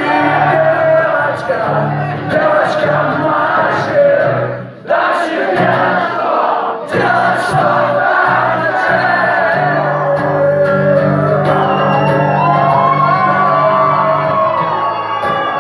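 Live band music with singing, and a crowd shouting and cheering along; the sound drops out briefly about five seconds in.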